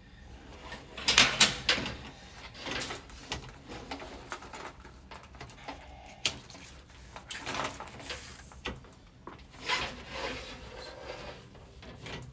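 An inspection camera and its push cable scraping and knocking inside a rigid metal dryer vent pipe, in irregular bursts, the loudest about a second in. The camera is being pushed against a 90-degree elbow that it cannot get past.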